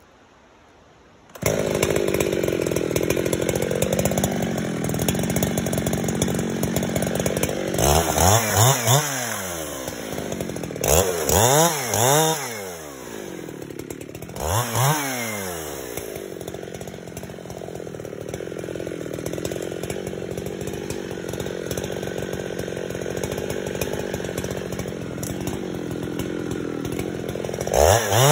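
Two-stroke chainsaw starting up suddenly about a second in, then idling, with the throttle blipped three times in rising and falling revs. It runs steadily after, and revs up again near the end as the bar is brought to the trunk.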